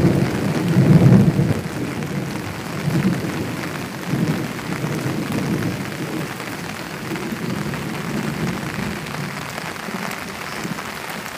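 Heavy rain falling steadily with thunder rumbling, loudest about a second in and rolling on more weakly after.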